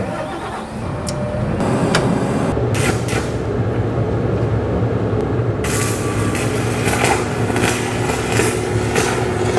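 A large welding-power generator is started on its key and runs with a steady engine rumble. A 1,000-amp stick-welding arc from a 3/4-inch electrode then crackles over it, growing harsher and louder about halfway through.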